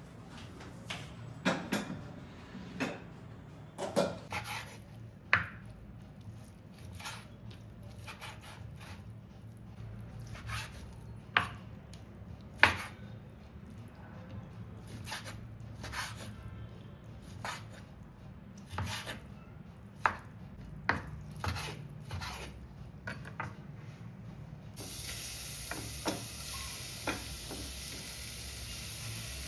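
A knife chopping on a cutting board in irregular sharp knocks. Near the end, a steady frying sizzle starts in a hot pan.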